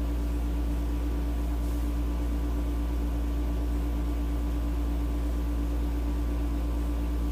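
Steady low hum with a constant tone over it, like a running appliance or fan, with no handling sounds.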